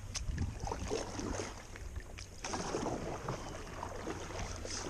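Kayak paddle strokes: the blade dipping and pulling through the water with splashing and dripping, and a sharp click about a quarter of a second in.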